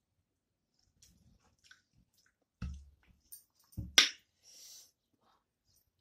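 Eating by hand from a metal plate: fingers mixing rice and curry, and chewing, with small wet clicks throughout. Two dull thumps come about two and a half and four seconds in, and right after the second a sharp click, the loudest sound.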